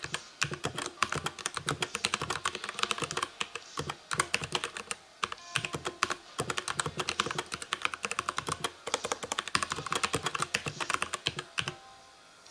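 Continuous fast typing on a Dierya DK63 mechanical keyboard with brown tactile switches and built-in sound-dampening: a dense patter of keystrokes that stops shortly before the end.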